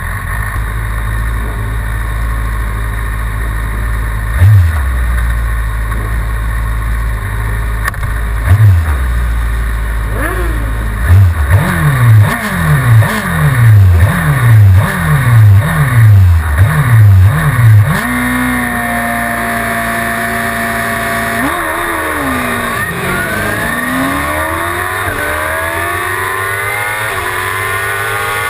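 Suzuki GSX-R750 inline-four motorcycle engine idling with two short throttle blips, then revved in a quick series of about seven rising sweeps and held at high revs. A few seconds before the end it launches and accelerates hard, the pitch climbing and dropping back with each upshift.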